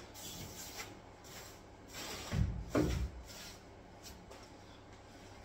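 Sawdust being brushed off the freshly cut chipboard edge of a kitchen worktop sink cutout, with scratchy rubbing strokes and a couple of knocks about halfway through.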